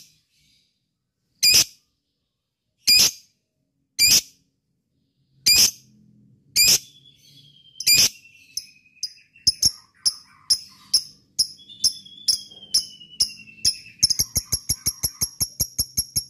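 Lovebird giving sharp single chirps about a second and a half apart, which quicken from about halfway into a fast, continuous chattering trill near the end: the lovebird's long 'ngekek' call. A faint falling whistle comes twice in the middle.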